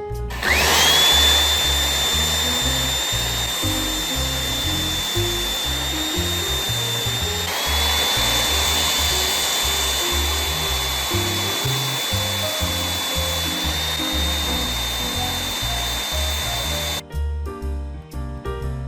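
Electric power tool, most likely a drill, spinning up quickly and running at a steady high-pitched whine, with a brief dip about halfway through, then stopping near the end. Background piano music plays underneath.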